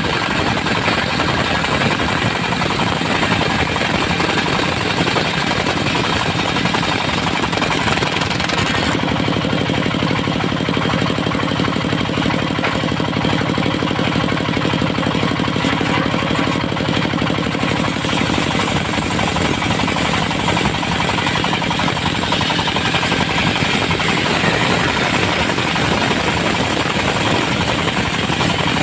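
Diesel engine of a mobile circular sawmill running steadily as the saw blade rips through dry, hard teak. The high hiss over the engine drops away for a stretch in the middle, then returns.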